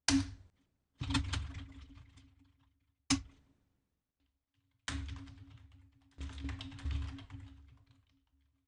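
Computer keyboard typing in short bursts of keystrokes with pauses between. There are single sharp key presses at the start and about three seconds in, and a longer run of typing in the second half.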